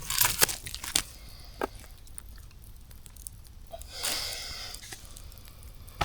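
Campfire crackling, with scattered sharp pops and clicks mostly in the first second, and a short hiss about four seconds in.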